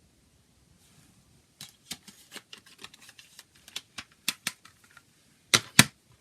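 Plastic CD case being handled: a run of light, irregular clicks and taps, then two loud sharp snaps close together near the end.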